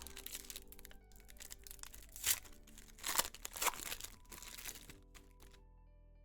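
Foil trading-card pack wrappers crinkling and tearing open in a run of sharp rustles, loudest about two, three and three and a half seconds in, stopping shortly before the end. Quiet background music plays underneath.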